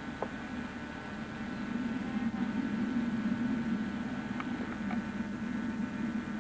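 Steady hum and hiss from a 1990s camcorder's own recording noise, with a few faint short ticks.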